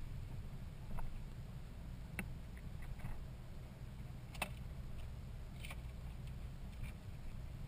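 Vehicle driving over rough ground: a steady low rumble with a few sharp clicks and knocks, the strongest about halfway through.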